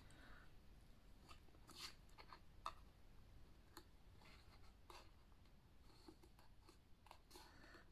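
Near silence, with a few faint, scattered ticks and rustles of paper and card being handled.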